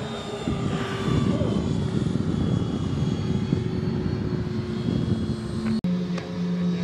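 Electric ducted fan of a radio-controlled model jet whining steadily in flight over a rushing noise. About six seconds in the sound breaks off sharply for an instant, and a lower steady hum follows.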